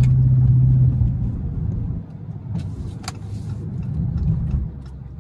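Dodge Charger SRT's V8 engine heard from inside the cabin while cruising at about 30 mph: a steady low drone that eases off about a second in and again two seconds in, swells briefly around four seconds, then drops away. A single sharp click about three seconds in.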